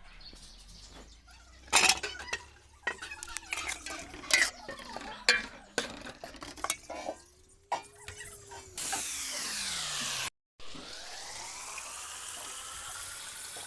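A spoon clinking and knocking against a cooking pot for the first several seconds, then food sizzling steadily in hot oil from about nine seconds in, cut off briefly near the ten-second mark.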